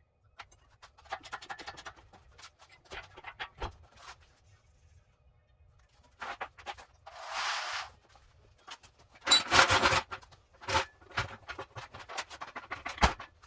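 Workshop handling noises of hand tools and metal parts: scattered clicks, knocks and scrapes, a short hiss about seven seconds in, and a louder clatter about nine to ten seconds in.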